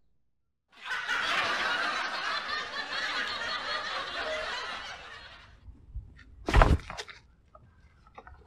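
A crowd laughing, starting just under a second in and fading out by about five and a half seconds. A single short, loud thump follows about a second later.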